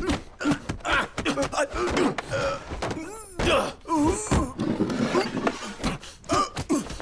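Kung fu film fight sounds: a rapid string of punch and block impacts landing several times a second, mixed with the fighters' grunts and strained groans.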